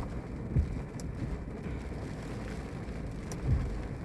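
Heavy wind-driven rain rushing steadily, with wind gusting against the microphone in two low thumps, about half a second in and again near the end.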